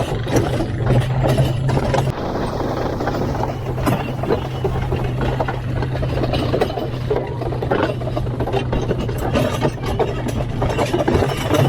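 Tractor engine running steadily while the towed passenger wagons rattle and jolt over rough ground, heard from inside a wagon.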